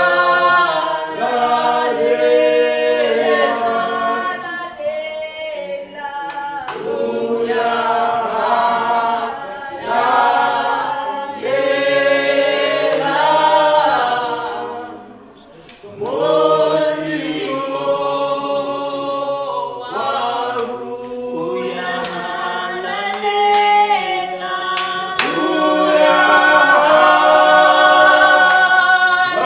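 A congregation singing a worship song together unaccompanied, many voices in sustained phrases, with a brief breath pause about halfway through.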